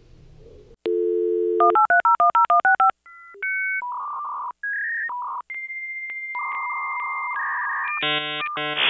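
Dial-up modem connecting: a steady dial tone, a quick run of touch-tone dialing beeps, then the modem handshake's beeps and a long high whistle, ending in a rising hiss.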